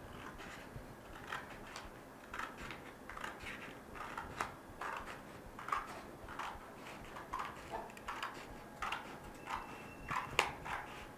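Scissors cutting through red card, a steady run of short snips, about two to three a second, with one sharper snip near the end.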